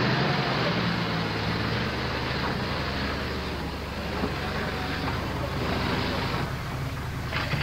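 Car engines running and tyres rolling as cars drive along a dirt track and pull up, an even road-and-engine noise.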